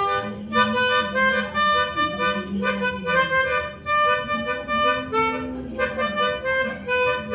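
Pianika (keyboard melodica) playing a melody of short, quickly changing notes in phrases, with a lower note held underneath much of the time.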